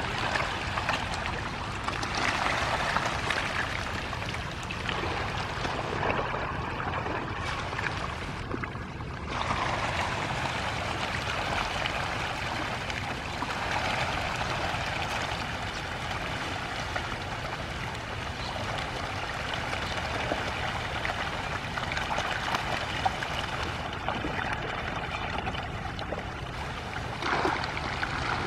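Continuous splashing and gurgling of water churned by a dense shoal of hybrid magur catfish thrashing at the pond surface as they take floating feed, with a brief lull just after eight seconds in.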